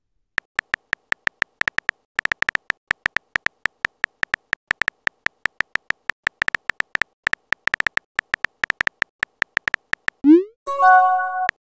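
Texting-app keyboard sound effect: rapid electronic key clicks, one short high blip per typed letter. Near the end, a short rising swoop and a chime of several notes as the message is sent.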